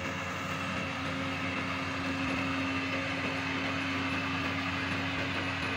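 Hino FG8J cargo truck's diesel engine running as the truck drives slowly past, a steady drone with a held hum.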